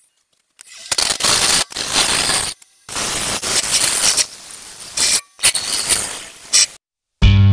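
A turning gouge cutting the inside of a wooden bowl spinning on a lathe, a coarse rushing hiss as shavings come off. It comes in several bursts that start and stop abruptly with short silent gaps between. Music starts right at the end.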